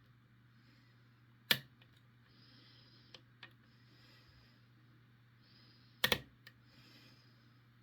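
Lock pick and tension wrench working the pins of a Ruko 5-pin cylinder with barrel spools during single-pin picking: faint short scraping strokes with a few sharp clicks, the loudest about a second and a half in and a quick double click about six seconds in.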